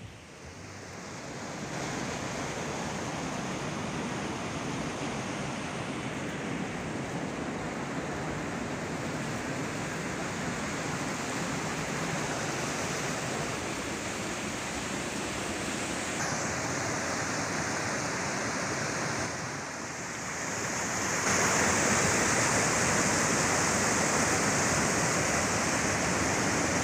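River water rushing over rocks in small rapids, a steady rush that grows louder about three quarters of the way through.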